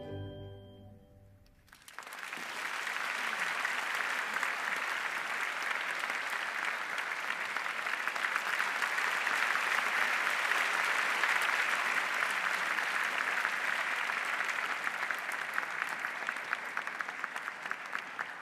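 The last notes of orchestral music fade out, and about two seconds in a theatre audience breaks into sustained applause that swells and then eases slightly toward the end.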